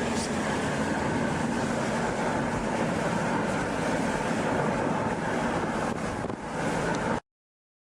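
Steady rumbling background noise with a faint hum, cutting off abruptly to dead silence about seven seconds in.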